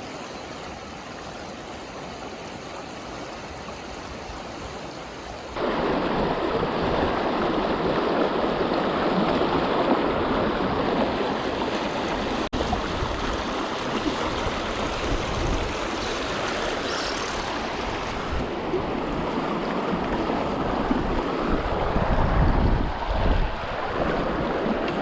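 Rushing water of a freestone river running over rocks, a steady hiss and rumble that gets abruptly louder about five seconds in.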